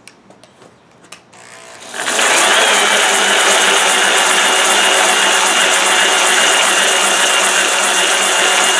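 Hardin Triad planetary concrete polisher switched on about two seconds in after a few light clicks, then running steadily with its polishing pads spinning on a concrete countertop: a loud grinding hiss with a thin, steady high whine over it.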